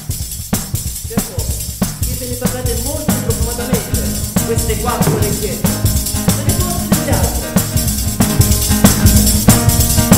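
Folk music led by a tamburello, a frame drum with jingles, beaten in a steady rhythm. About two to three seconds in, a melody and a low held note come in, and the music gets louder toward the end.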